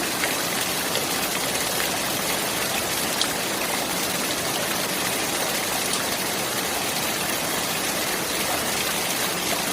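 Clear running water flowing steadily: an even rush with faint splashing ticks now and then.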